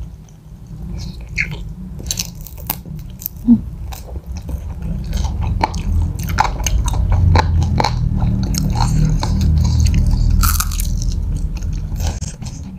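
Close-miked chewing and biting of spicy fried chicken, with small crunches of the battered coating and wet mouth clicks; the chewing is loudest through the middle.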